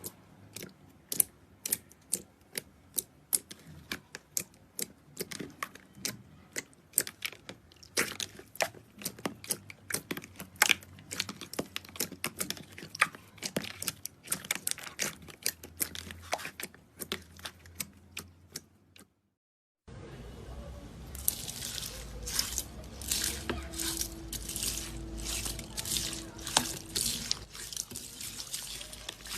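Slime being squeezed and poked by hand, making a run of sharp wet clicks and pops. The sound cuts out for about a second just before the 20-second mark and comes back as denser, brighter crackling.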